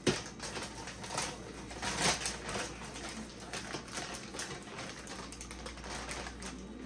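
Irregular light clicking and rustling from food being handled on a kitchen counter, with a sharper knock at the start and another about two seconds in.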